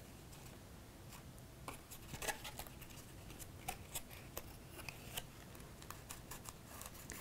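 Faint, irregular light clicks and rustles of cardstock being handled and pressed, as a glued paper tab is held in place.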